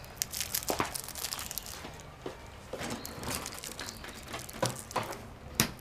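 Crinkling and rustling of a wrapped sweet being unwrapped: a run of small, irregular crackles with a few sharper ticks.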